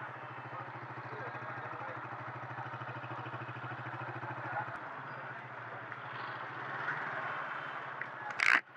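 Motorcycle engine running steadily as it rides through city traffic, with street noise around it. A short, sharp noise near the end.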